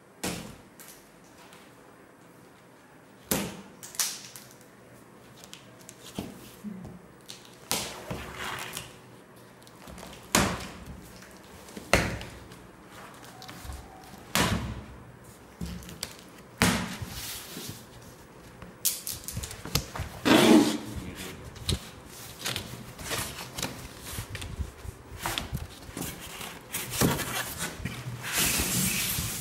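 Irregular knocks, thuds and scraping from a boxed front-loading washing machine and its packaging being handled and unpacked, with longer scraping and rustling stretches in the second half.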